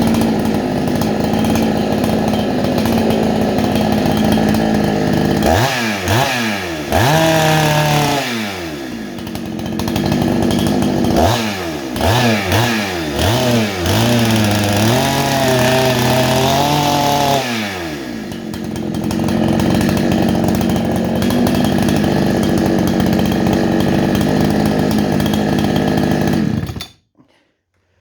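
Freshly rebuilt Husqvarna 288 two-stroke chainsaw running: idling, blipped up and down a few times, held at high revs for a few seconds, dropping back to idle, then shut off near the end.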